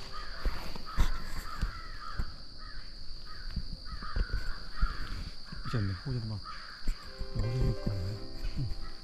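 Crows cawing repeatedly in the treetops, a run of short harsh calls over the first five seconds or so.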